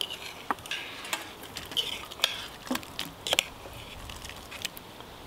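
Metal spoon scraping and clinking against the inside of a billy can as stew is ladled out into stainless steel bowls. The clinks come thick and fast for the first three seconds or so, then thin out to one last tap near the end.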